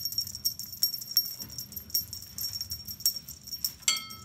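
Small metal jingle bells on a cat toy, shaken so they jingle and rattle in quick, uneven bursts, with a brighter ring near the end.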